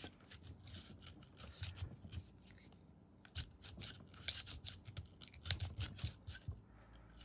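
Oiled bore brush on the Glock cleaning rod scrubbed back and forth inside a Glock 48 pistol barrel: quick scratchy rubbing strokes, in two spells with a short pause about halfway.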